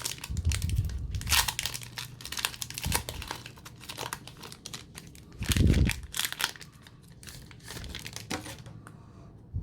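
Foil Pokémon booster pack wrapper crinkling and tearing open by hand, in irregular crackles, with a dull thump a little past the middle.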